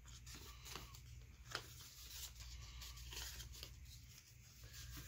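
Faint paper rustling and light taps as the pages of a sticker pad are handled and flipped, with one sharper tick about a second and a half in.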